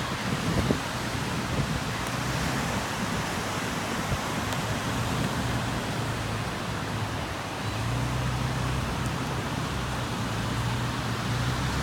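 Steady rushing noise of surf breaking on a sandy beach, mixed with wind, and a low hum underneath that grows a little stronger about eight seconds in.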